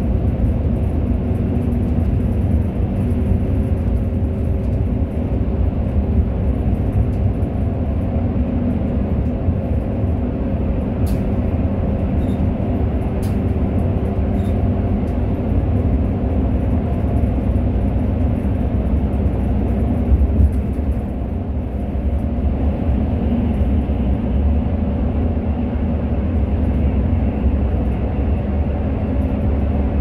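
Cabin sound of a city seat bus on the move: a steady low rumble of engine and road noise with a constant engine hum. Two light ticks about a third of the way in, and a brief louder bump about two-thirds through.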